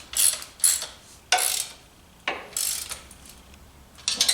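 A ratchet wrench being worked on a fastener, its pawl clicking in about five short, irregularly spaced strokes.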